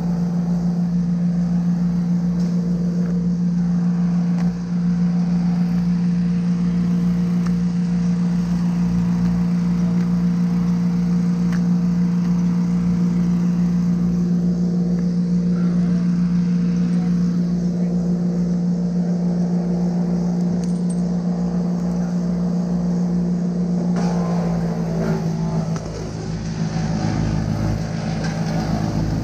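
A large engine running steadily at a constant speed, with a low steady hum and an even pulsing beneath it. About 25 seconds in, its note drops and changes, as if the engine's speed or load shifts.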